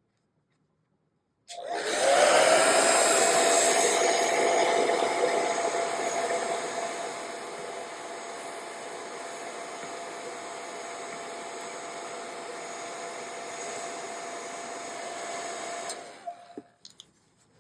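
Handheld hot-air blower switched on about a second and a half in, its fan whine rising as it spins up, then running with a steady rush of air and a steady whine; it is heating the wax that holds accordion reed plates so they can be lifted off. It is loudest for the first few seconds, runs a little quieter after that, and is switched off near the end, the whine dying away, followed by a few light clicks.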